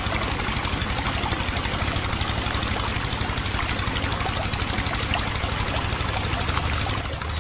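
Small motor of a miniature water pump running steadily with a rapid, even rattle while it pumps water through a tube. It gets a little quieter near the end.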